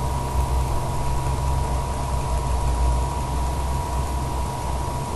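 A steady low hum, uneven and engine-like, with a constant thin tone above it and a faint hiss.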